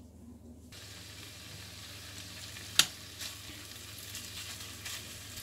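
Diced chicken breast sizzling in hot oil in a nonstick pan while being stirred with a wooden spoon. The sizzle starts abruptly under a second in and holds steady, with one sharp knock about halfway through.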